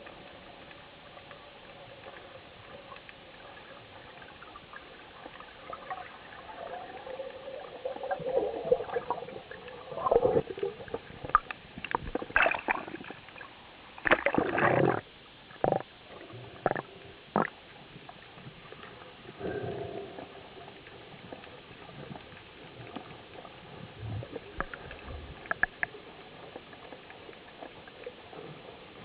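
Water sloshing, gurgling and splashing around an underwater camera housing as it breaks the sea surface among waves, in loud irregular spells through the middle. Before and after is the faint ticking and crackle of water heard underwater.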